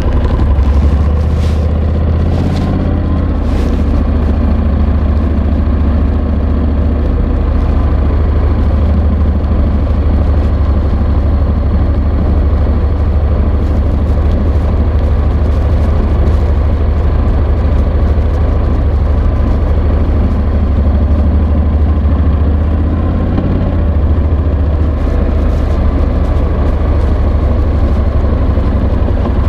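Honda NC750X motorcycle's parallel-twin engine running steadily, with a deep, even low note. Scratchy rubbing of the microphone against a slippery fabric jacket pocket comes through at times, mostly near the start and near the end.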